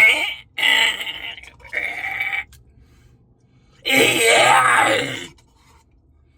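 A man's wordless vocal noises, grunts and groans, in three short bursts and then a longer one about four seconds in.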